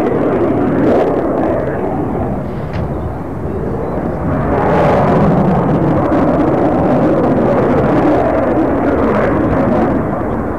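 Loud, continuous rumble of a display aircraft's engines in flight, mixed with wind buffeting the microphone; it swells about four seconds in and eases near the end.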